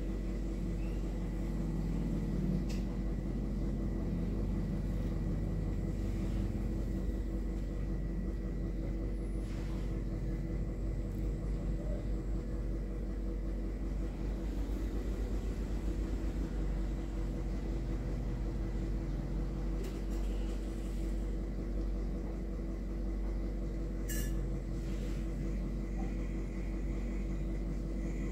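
Steady low rumble with a constant hum running underneath, and a few faint ticks scattered through.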